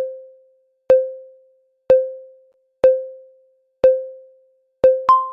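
Countdown timer sound effect: a short electronic tick-tone, clicking on and dying away, once a second as the final seconds count down. Near the end, a higher chime note sounds as the timer reaches zero.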